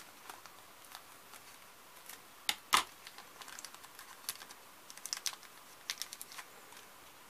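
Light clicks and rustles of tiny plastic toy flower pieces being handled in a small plastic bag, with two sharper taps about two and a half seconds in and small flurries of clicks later.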